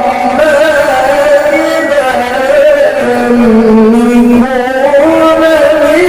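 A man reciting the Quran in melodic tilawah style, drawing out long ornamented notes that waver and glide in pitch without a break.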